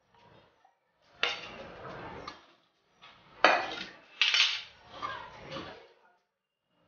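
Stainless steel plate, bowl and fork clattering as they are handled and set down, with sharp metallic clanks about three and a half and four and a half seconds in.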